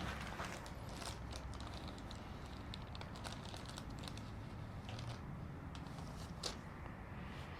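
Faint, scattered light clicks and ticks, irregular and spaced, over a steady low hum, with one slightly sharper click about six and a half seconds in.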